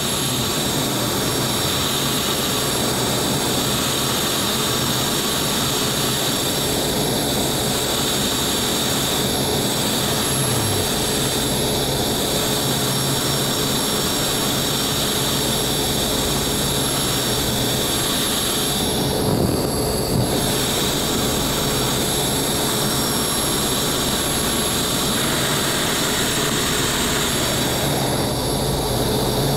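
BD-5J microjet's small Microturbo turbojet running steadily at taxi power, a constant jet whine and rush heard from a camera mounted on the airframe.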